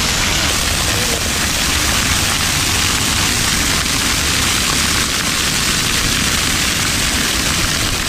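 Ground-level fountain jets arcing and splashing onto wet paving stones, making a steady hiss of falling water.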